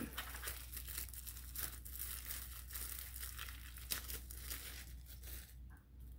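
Clear plastic wrap crinkling and tearing as it is peeled off a small plastic plant pot, a dense run of irregular crackles that dies down about five and a half seconds in.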